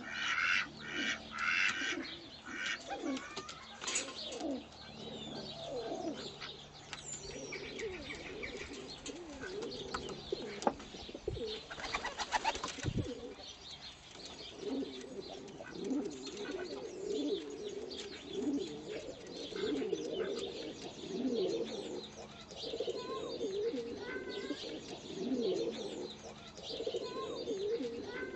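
Domestic pigeons cooing over and over in low, warbling notes, a male's courtship cooing. Higher chirping is heard in the first few seconds.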